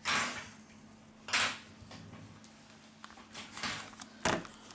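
Short handling noises of a phone and its parts on a workbench: a brief scrape at the start, another about a second and a half in, softer rustles later and a sharp click near the end.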